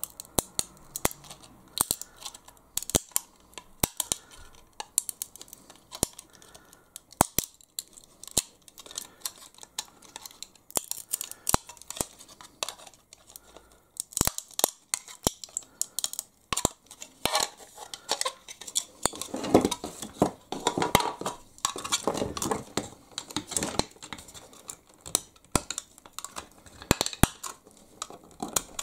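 Hand nibbler biting small pieces out of brittle plastic to enlarge a cut-out. Each squeeze gives a sharp snip, coming irregularly and sometimes in quick runs, with a scratchier stretch about two-thirds of the way through.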